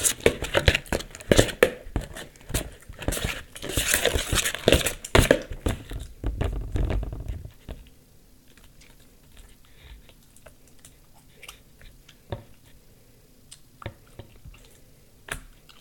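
Hands squishing and stretching sticky purple glue slime, still setting as activator is added, in a plastic bowl: wet crackling and popping. It is busy and loud for about the first seven seconds, then thins to occasional soft clicks.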